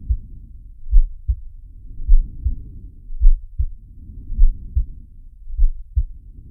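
Heartbeat and breathing sound effect. A slow heartbeat of paired low thumps, about one lub-dub a second, runs over breathing that swells and fades every couple of seconds.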